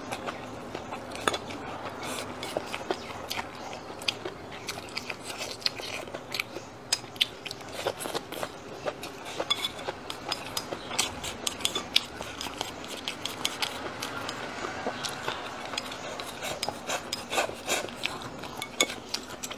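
Wooden chopsticks clicking and scraping against a ceramic bowl as rice is shoveled into the mouth, with close-miked chewing and biting. The clicks come thick and irregular throughout.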